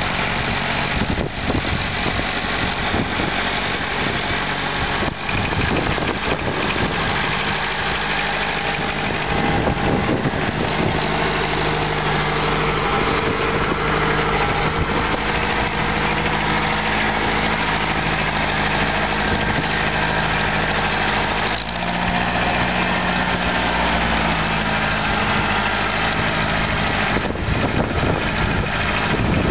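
1958 McCormick International B275 tractor's four-cylinder diesel engine running at low speed as the tractor drives along. Its note shifts a little about ten seconds in and again a little after twenty seconds.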